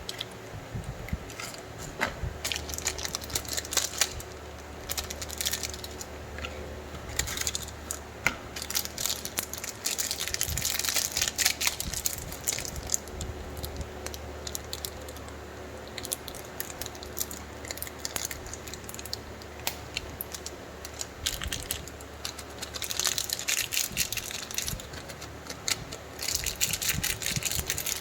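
Plastic candy packaging crinkling and tearing as it is opened by hand, with scattered clicks and small rattles, over a faint steady low hum.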